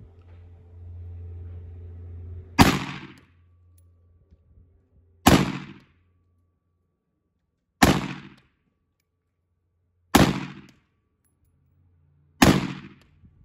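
Five single gunshots, spaced about two and a half seconds apart, each with a short echoing tail.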